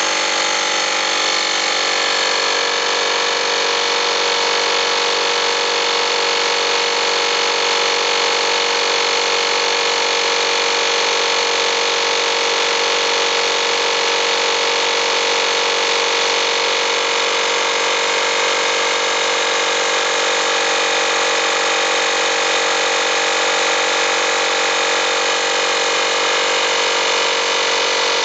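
Campbell Hausfeld FP2028 1-gallon 120 V air compressor running steadily, its pump filling the tank as the tank pressure climbs from about 80 to about 100 psi.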